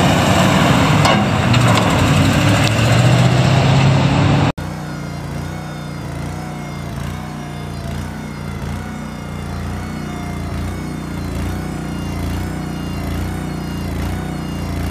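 A large gasoline truck engine running loudly. About four and a half seconds in, an abrupt cut leads to a quieter small engine running steadily with a low, even pulse.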